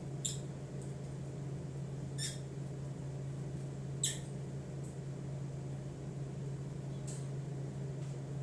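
Pet budgerigars giving four short, sharp chirps a couple of seconds apart, the one about four seconds in the loudest, over a steady low hum.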